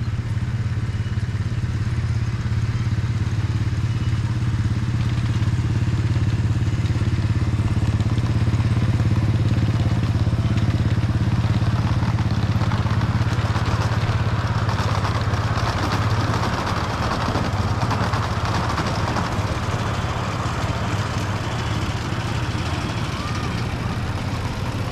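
Small engine of a 7½-inch gauge miniature locomotive running with a steady low hum as it hauls a train past. About halfway through, the wheels of the freight and passenger cars rattle along the track for several seconds, and the hum fades.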